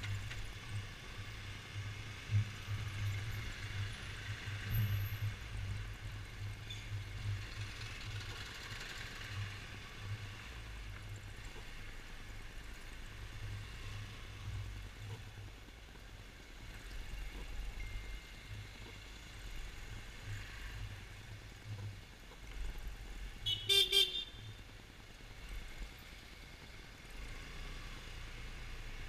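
Yamaha XMAX 250 scooter riding through slow city traffic: a low, steady rumble of its single-cylinder engine and the wind, with one short horn toot near the end.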